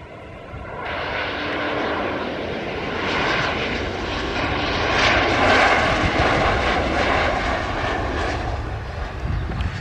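Airplane engines passing by, growing louder about a second in, loudest around the middle, then easing off.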